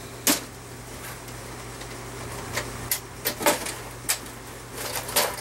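A socket set's plastic case being opened and handled: a series of sharp clicks and knocks as its latches and contents are moved, over a steady low hum.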